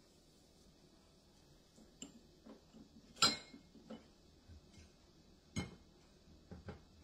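A few separate light clinks and knocks of plates and a metal baking sheet being handled on a counter, the sharpest a little over three seconds in and again past halfway.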